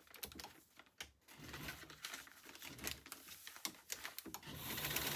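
Thin, flimsy dictionary paper crinkling and rustling as it is handled, with short sharp clicks and a denser crackle near the end.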